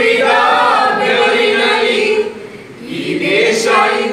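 A mixed group of young men and women singing together in unison without accompaniment, on long held notes. The singing drops away briefly about two seconds in, then starts again.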